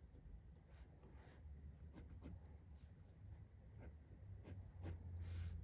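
Faint scratching of a coloured pencil making short light marks on drawing paper, with a longer, louder stroke near the end. A low steady hum runs underneath.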